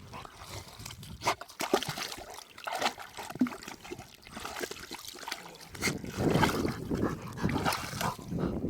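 A golden retriever at water, with small splashes and trickling. A louder rushing noise comes in surges over the last three seconds.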